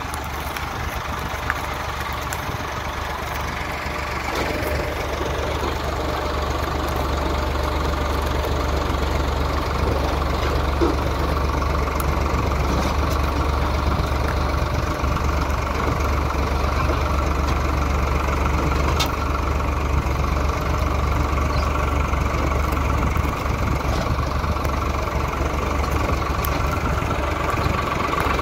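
Tractor diesel engine running steadily with a low rumble, growing a little louder about four seconds in and then holding steady.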